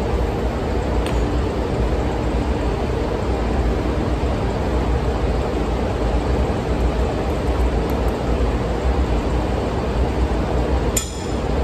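Steady drone of ship's engine-room machinery, a constant low hum under an even noise, with a brief click near the end.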